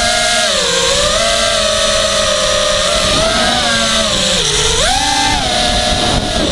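Blade Conspiracy 220 quadcopter's electric motors and propellers whining in flight, heard from on board. The pitch wavers up and down with the throttle, dips about four and a half seconds in, then jumps up sharply just after.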